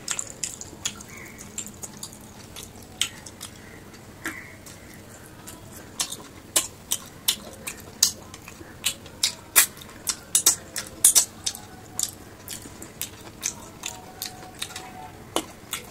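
Close-miked chewing and lip-smacking of a man eating rice and fish curry by hand: a run of short wet mouth clicks, sparse at first and coming two or three a second in the second half.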